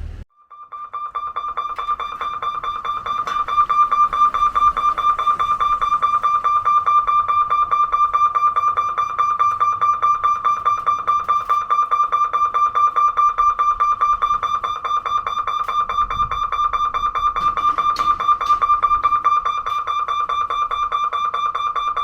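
Level-crossing electric warning bell ringing rapidly and continuously at one steady pitch, cutting in suddenly just after the start: the signal that a train is approaching and the gate is closing.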